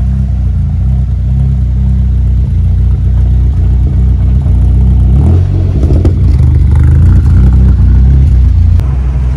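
An old saloon car's engine running, heard close up at the rear of the car, revving up about five seconds in and staying louder for a few seconds before settling back.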